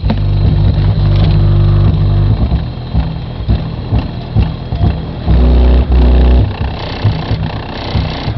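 Music with heavy, booming bass played loud through a car audio system with an 8-inch Sony speaker and two 6-inch Gradiente speakers. Long held bass notes change in steps under a beat.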